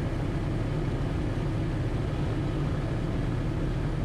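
Cub Crafters NX Cub's engine and propeller droning steadily at reduced power on final approach, heard inside the cockpit.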